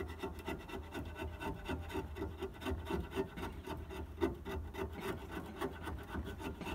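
Flaking paint being scraped by hand off a galvanised steel trim strip, in quick, even back-and-forth strokes at several a second.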